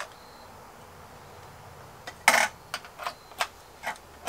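A replacement TV main circuit board being slid onto its mounting pegs on the metal back panel and snapped into place: one sharp click about two seconds in, then a few lighter clicks.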